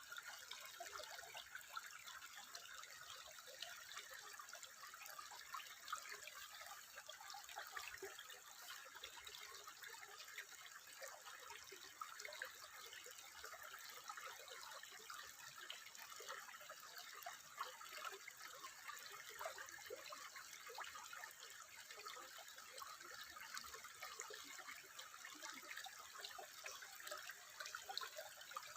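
Water trickling steadily, with a dense, fine patter of small splashes and no pauses.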